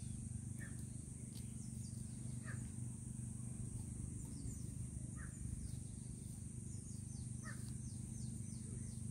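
Outdoor ambience: a bird repeats a short, falling call about every two to three seconds while other birds chirp, over a steady high-pitched insect drone and a low hum.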